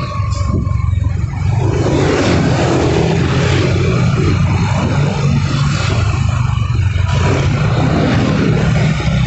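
Motor scooter and minibus engines running in slow, congested street traffic: a steady low engine drone with traffic noise over it.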